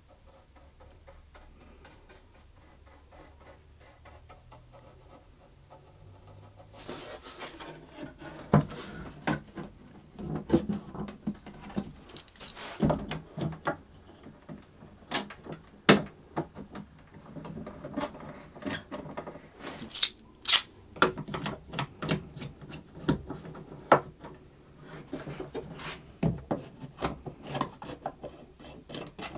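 Faint and low for the first several seconds, then a long run of irregular sharp clicks and knocks as clamps are set on and tightened around the edge of a cello back being glued onto the ribs.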